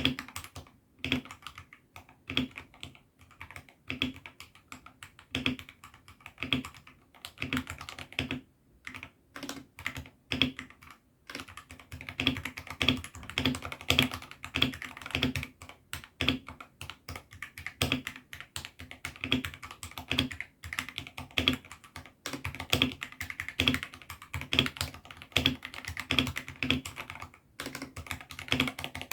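Typing on a mechanical keyboard with AKKO Sakura switches: separate, spaced keystrokes at first, turning into quicker, continuous typing about halfway through.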